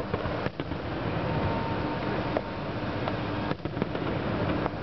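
Aerial fireworks heard at a distance: a few sharp bangs of shells bursting, over a steady rumble of background noise.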